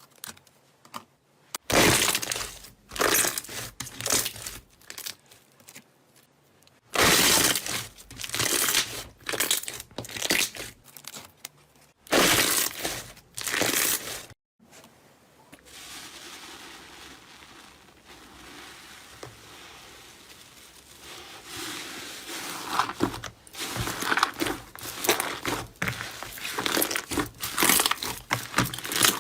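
Slime being squeezed and pressed by hand, crackling and crunching in quick bursts, with short pauses between handfuls and a softer, steadier hiss in the middle.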